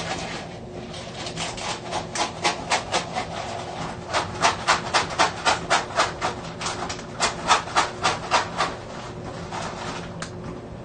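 A quick run of short, evenly spaced scratching strokes, about four a second, loudest in the middle and thinning out near the end.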